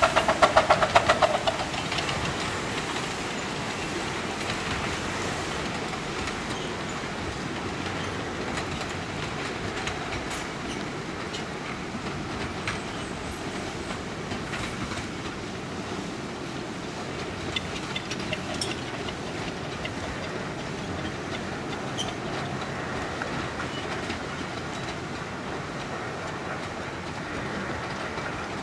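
A 15-inch gauge miniature railway train running past and away, a steady rumble of wheels on track with scattered clicks over the rail joints. A louder pulsing, pitched sound from the locomotive dies away in the first second or two.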